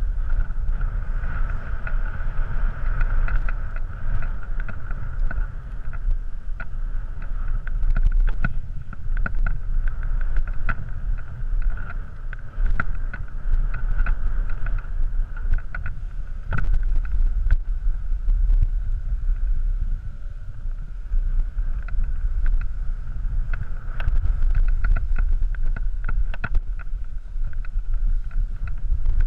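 Wind buffeting a helmet-mounted action camera's microphone during a downhill ski run, a strong low rumble. Over it come the steady hiss of skis carving packed snow and scattered short scrapes and clicks of ski edges.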